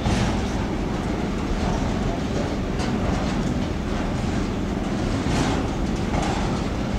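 BCACBM-B covered car-carrier freight wagons rolling past: a steady rumble of steel wheels on rail, with a few short clicks as the wheels pass over rail joints.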